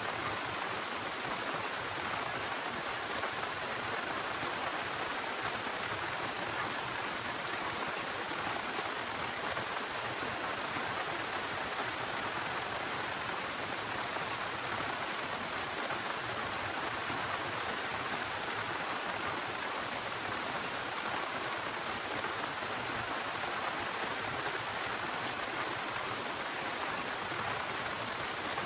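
Heavy rain pouring down steadily, an even unbroken hiss of falling water.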